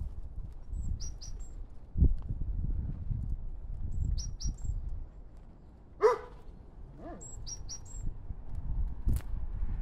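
A dog, the walker's springer spaniel, gives a short pitched cry about six seconds in and a fainter one a second later. A small bird repeats a quick, high three-note call three times. A low rumble runs underneath, with a thump about two seconds in.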